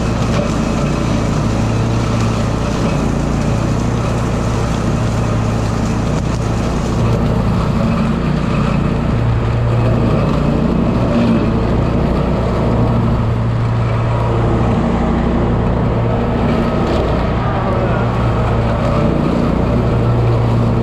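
Riding lawn mower's engine and blades running steadily as it mows through beach weeds and young cottonwood saplings.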